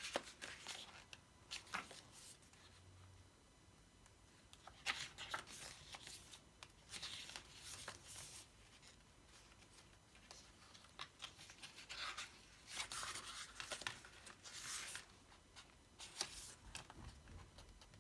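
Pages of a photobook album being turned and handled: scattered paper rustles and slides, each a second or so long.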